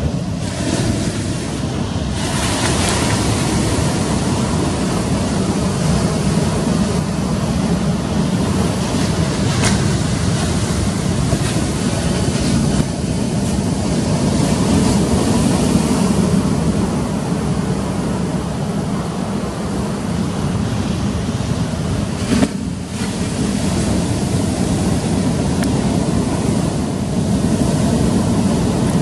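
Ocean surf breaking, with wind buffeting the microphone.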